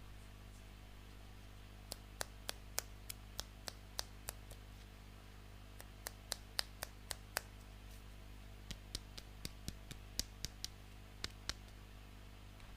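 Small plastic toy pieces clicking against each other as they are handled, in three runs of sharp clicks, about three or four a second, over a low steady hum.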